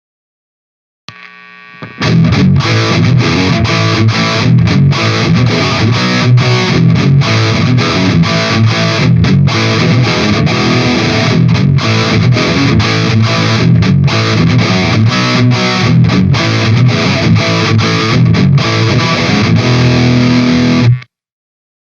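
Electric guitar played through a high-gain overdrive pedal, playing a riff of distorted chords with short choppy breaks. It comes in about two seconds in after a faint lead-in and cuts off abruptly near the end.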